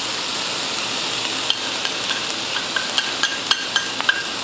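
Stir-frying in a wok: a steady sizzle of meat, squid and cabbage frying in oil with curry powder. From about a second and a half in, a metal spatula clacks against the wok about three times a second as the food is tossed.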